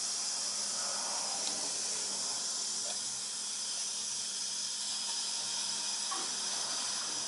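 Air hissing steadily out of an open bleed valve on a cast iron radiator as the drained heating system refills. The air is still venting and no water has reached the valve yet.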